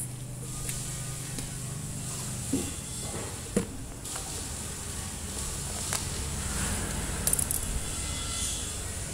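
Steady low rumble of motor traffic on a nearby road, swelling a little near the end. Two sharp clicks, about two and a half and three and a half seconds in, come from the electric kettle's base parts being handled.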